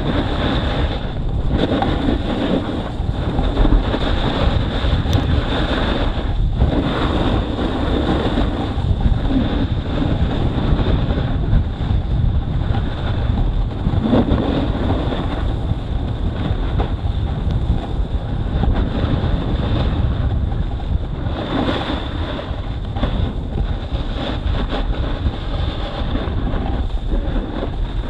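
Wind buffeting the microphone and a snowboard sliding and scraping over the snow during a downhill run, a loud, steady rush with no breaks.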